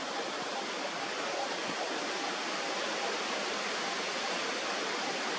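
Steady, even rushing hiss with no distinct sounds in it.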